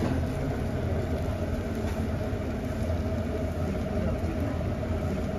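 Steady low mechanical hum and rumble, with a constant tone running through it and no distinct events.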